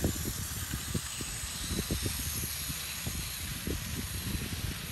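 Long HO scale model train rolling past on plastic track: a steady low rumble with rapid, irregular clicking from the wheels, under an even high hiss.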